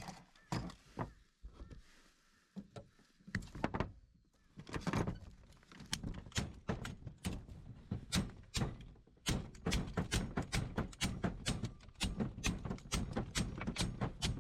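Repeated knocks on the folding cart's cracked front wheel mount as it is worked loose. The strikes are scattered at first and settle into a steady run of about four a second from about six seconds in.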